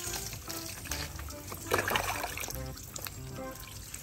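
Water poured from a plastic dipper over a wet cat, splashing and dribbling off its fur onto a bamboo slat floor, heaviest about two seconds in. Soft background music plays underneath.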